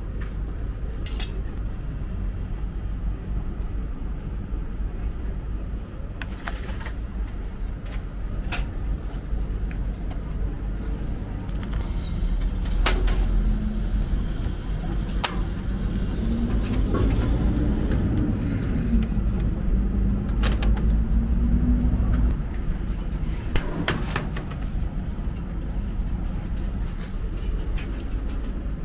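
Retro toast-sandwich vending machine at work: a coin clinks into the slot at the start, then a steady low hum with scattered mechanical clicks while it toasts. The hum grows louder from about 12 to 22 seconds, with a low tone that rises and falls.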